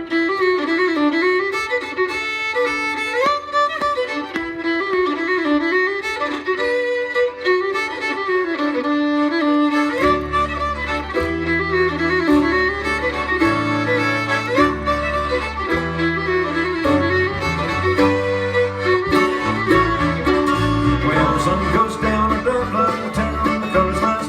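Bluegrass band playing the instrumental opening of a tune, the melody carried on fiddle and accordion. About ten seconds in, the bass and the rest of the band come in and the sound fills out.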